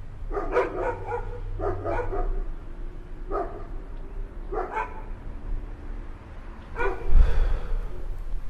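A dog barking, about seven short barks spaced irregularly, over a steady low rumble that swells briefly about seven seconds in.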